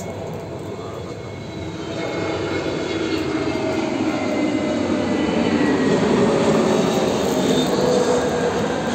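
A passing vehicle, heard as a rumble that swells slowly to a peak about six to eight seconds in and then begins to fade, with faint tones drifting gradually lower.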